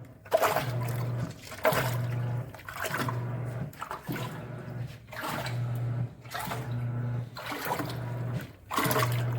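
Giantex portable washing machine running its wash cycle: the motor hums in short strokes, about one a second with brief pauses between, as the agitator churns and sloshes the water in the tub.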